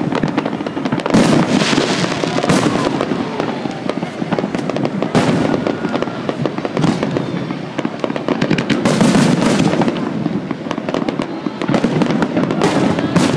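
A fireworks display in full swing: a continuous barrage of bangs and crackling, with heavier bursts about a second in, around five seconds in and around nine seconds in.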